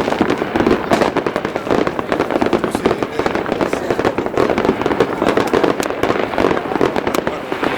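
New Year fireworks going off: a dense, unbroken run of overlapping bangs and crackles, many each second.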